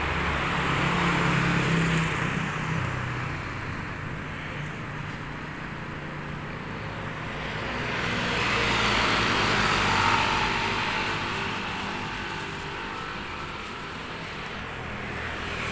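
Road traffic on a city street: a steady noise of vehicles going by, swelling as one passes about two seconds in and again as another passes around ten seconds in.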